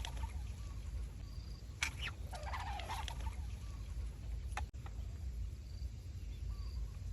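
Fishing line hissing and warbling as it slices through the water while a fish pulls against a Chinese-style fishing pole, in a burst starting about two seconds in after a sharp click, over steady low wind rumble.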